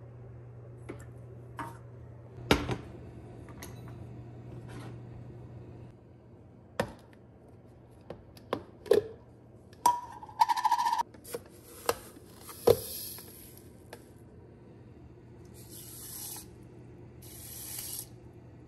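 Kitchen food-prep sounds: scattered knocks, taps and clinks of pots, utensils and containers being handled. There are a few short hissing bursts in the second half, and a low hum in the first few seconds.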